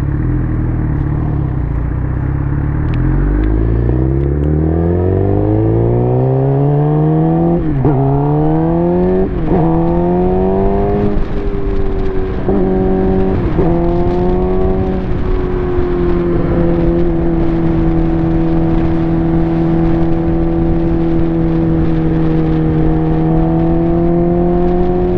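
2007 Suzuki GSX-R's inline-four engine through an aftermarket M4 exhaust, heard while riding. It accelerates with the pitch rising through the gears, with several sharp dips at the upshifts, then settles about halfway through into a steady cruise.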